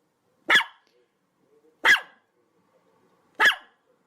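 Chihuahua barking: three short, sharp, high-pitched yaps, spaced about a second and a half apart.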